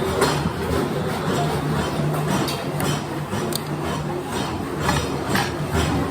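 Scattered metal clinks and light knocks of hand tools over a steady low hum.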